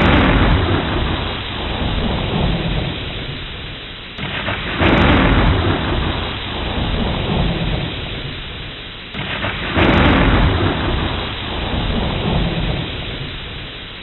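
Rain sound effect: steady heavy rain under three deep rolls of thunder. Each roll starts suddenly and fades over about four seconds, and they come about five seconds apart.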